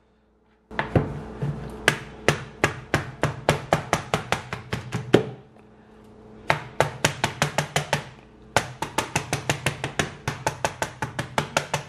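Large kitchen knife chopping soft fire-roasted brinjal on a plastic cutting board: quick, even knocks about four a second, in three runs with brief pauses about five and eight seconds in.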